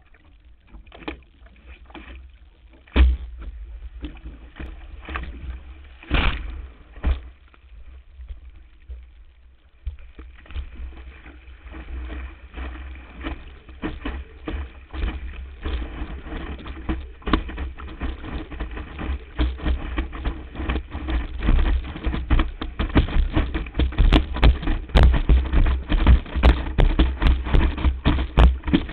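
Water slapping and splashing against a windsurf board and its nose-mounted camera housing, with low buffeting rumble. A few separate knocks come in the first seconds; from about ten seconds in it turns into a continuous rush of rapid slaps as the board sails through the chop, growing louder toward the end.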